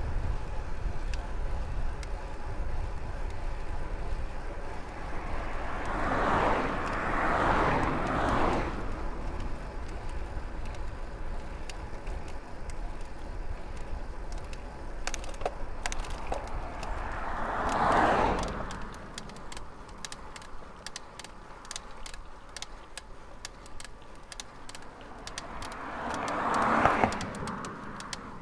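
Cars passing on the road, three times: each one swells and fades over a couple of seconds, about a quarter of the way in, again past halfway, and near the end. Wind rumbles on the microphone through the first two-thirds.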